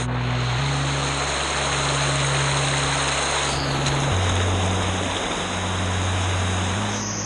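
Steady rush of waterfall water, with background music's low bass notes changing in steps underneath.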